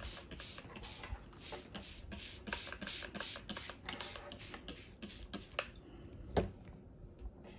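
Plastic trigger spray bottle pumped rapidly, a quick series of short water squirts misting a coffee filter, stopping a little past halfway. A single louder knock follows near the end.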